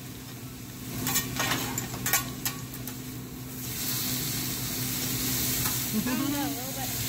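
Food sizzling on a hibachi griddle, a steady hiss that gets louder about three and a half seconds in. A few light clicks come in the first half, and a voice is heard briefly near the end.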